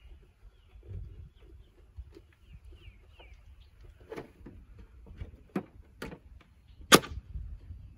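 A solar electric-fence charger being closed back up: several sharp clicks and knocks as its housing shuts and its two side clips snap closed, the loudest near the end. Faint short bird chirps sound in the background.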